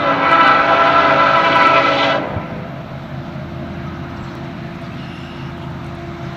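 Air horn of the lead Norfolk Southern SD70ACe diesel locomotive blowing one long multi-tone chord for about two seconds as the train approaches a grade crossing, then cutting off, leaving the steady low rumble of the approaching diesel locomotives.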